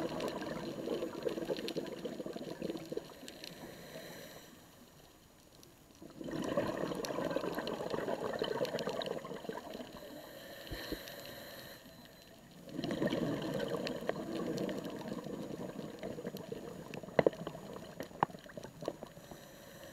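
A scuba diver's regulator heard underwater, venting exhaled bubbles in three bubbling bursts a few seconds long: one at the start, then about six and thirteen seconds in. Quieter gaps between the bursts mark the in-breaths, and a few sharp clicks come near the end.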